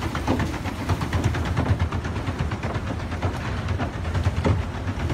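A pedal boat's paddle-wheel drive being pedalled: a steady low rumble with a rapid, irregular clatter of knocks.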